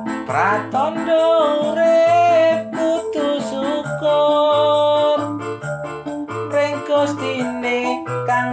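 Background music: a song with a held melody over a repeating bass line.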